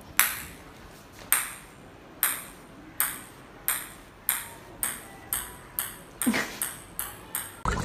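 Ping-pong ball bouncing on a tiled floor as two cats bat it between them: about a dozen sharp clicks that come closer and closer together.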